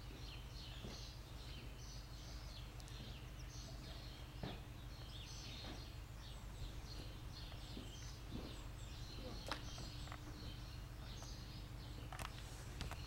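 Songbirds chirping and twittering over a steady low hum, with a few faint short knocks.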